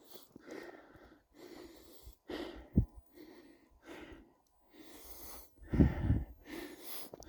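Footsteps crunching in snow at a steady walking pace, about one step every 0.7 seconds, with a couple of heavier thuds midway and near the end.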